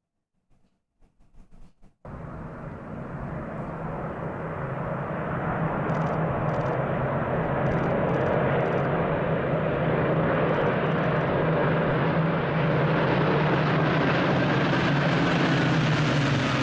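A swarm of propeller warplanes droning as they approach, a steady buzzing of many engines. It cuts in about two seconds in, swells louder over the next several seconds, then holds, with the engine pitch sagging slightly near the end.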